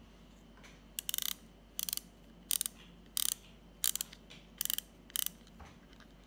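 Small metal mechanism with spring-loaded arms, its central hub turned by hand, giving seven short rattling bursts of rapid clicks about two-thirds of a second apart.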